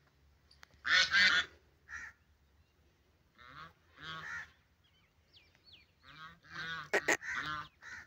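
A series of short honking calls from farm fowl, about eight of them in irregular bunches.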